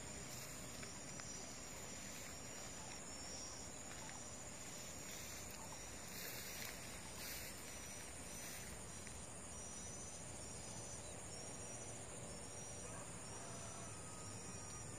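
Steady high-pitched insect drone with short chirps repeating regularly, less than a second apart.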